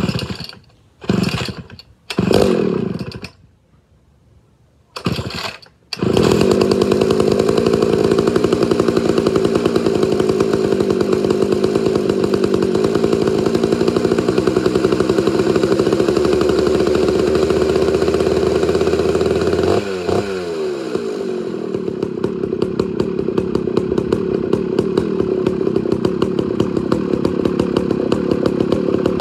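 Homelite Super XL 925 chainsaw with a governed carburetor being pull-started: four short pulls, the last of which catches. It then runs steadily. About two-thirds in, its speed and level drop and it settles into a slower idle with separate firing beats.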